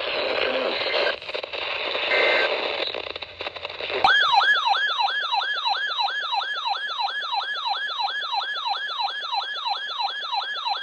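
Static-laden weather-radio broadcast audio, then about four seconds in it cuts suddenly to an electronic siren-style alert tone. The tone sweeps up and down about three times a second and keeps going.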